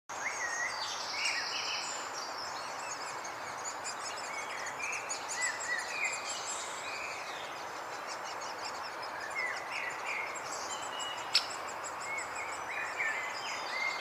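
Several small birds chirping and calling over a steady outdoor hiss, with one sharp click about eleven seconds in.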